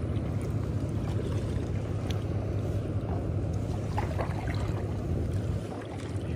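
Paddling a stand-up paddleboard with a double-bladed paddle: a steady low wind rumble on the microphone over water lapping at the board, with a few faint drips and splashes from the blades.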